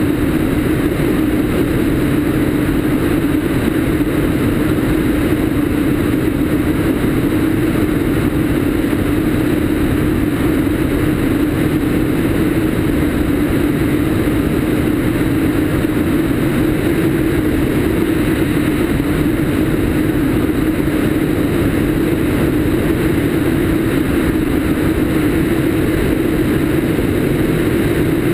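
Cessna 152's four-cylinder Lycoming O-235 engine and propeller running steadily in flight, heard through the rush of airflow over a camera mounted outside on the wing strut.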